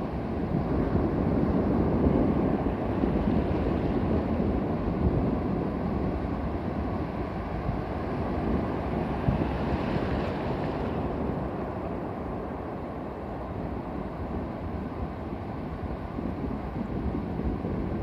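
Ocean surf breaking close by and foam washing up over the sand, with wind buffeting the microphone. The surge is loudest a second or two in, and a brighter hiss of washing foam comes about ten seconds in.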